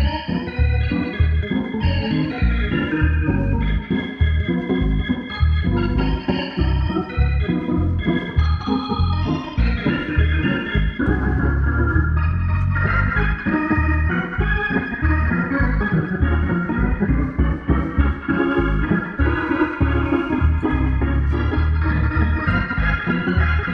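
Two-manual organ played with both hands: sustained gospel chords over a steady, pulsing bass line.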